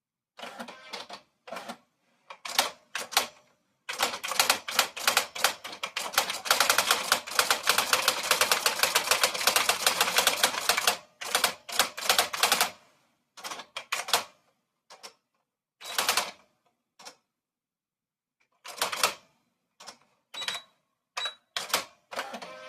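Typewriter keys being typed: short runs of keystrokes, then a dense, fast burst of typing lasting about seven seconds, followed by scattered short groups of strokes with pauses between them.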